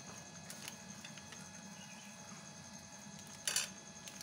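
Light kitchen handling noises while jelly is prepared in a pot: a few faint clicks and one short, louder scrape or clatter about three and a half seconds in, over a steady low hum.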